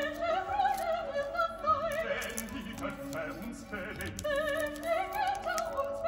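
Background music: operatic singing, one voice with a wide vibrato over accompaniment.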